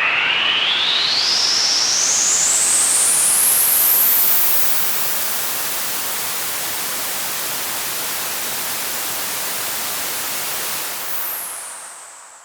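Synthesized sci-fi sound effect: a rising sweep climbing steeply in pitch over a loud rushing hiss. The hiss settles a little quieter about four seconds in, holds steady, then fades out near the end as a short high tone drops and settles.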